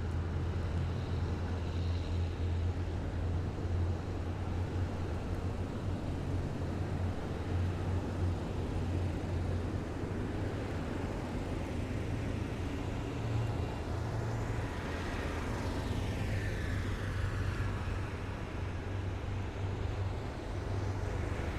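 Heavy military vehicles driving past in a column: a steady low engine drone with road noise, and a sweeping whoosh as one passes close about two-thirds of the way through.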